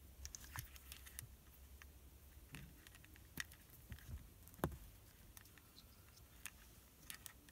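Faint clicks, taps and rustles of small plastic connectors and wires being handled: the cables, antenna plugs and inline fuse holder of a car FM/AM antenna booster. The sharpest tap comes about two-thirds of the way through.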